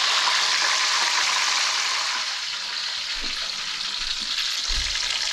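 Hot frying oil sizzling steadily from a freshly fried schnitzel, easing a little about two seconds in, with a few soft low bumps near the end.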